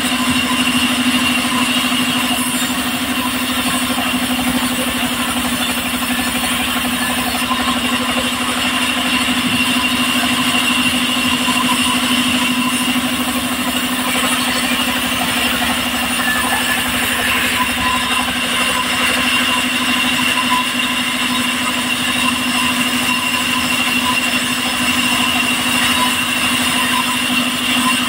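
Engine-driven sawmill running steadily, its engine and blade giving a constant hum with a high whine as mahogany slabs are fed through to be cut.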